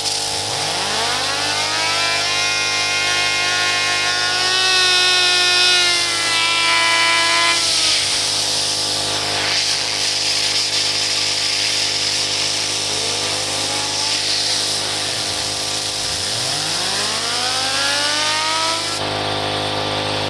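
Fidget spinner spun up to high speed, a whine rising in pitch and then holding steady for several seconds before falling away, then rising again a few more times. Underneath is the steady hum of a running motor.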